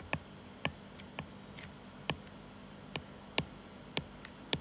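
Stylus tip tapping on a tablet's glass screen while handwriting: about eight short, sharp taps at uneven intervals.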